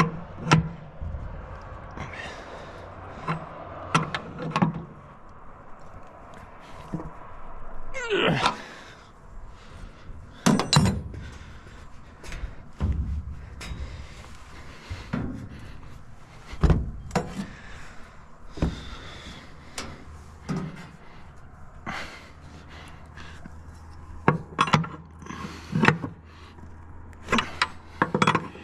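A wrench and other hand tools clank and knock against the red sheet-metal head housing at the top of a grain elevator leg during maintenance. The knocks come irregularly, every second or two, with a longer scrape about eight seconds in.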